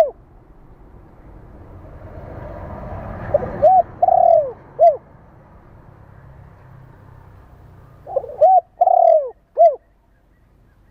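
Spotted dove cooing in repeated phrases. Each phrase is two quick short coos, then a longer drawn-out note, then a short closing coo. The tail of one phrase falls at the very start, and two full phrases come about four seconds in and near the end. A rushing noise swells up just before the first full phrase.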